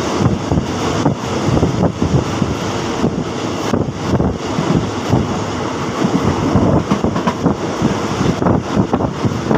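Loud, steady rush of wind buffeting the microphone at a moving passenger train's window, with the train's running noise underneath.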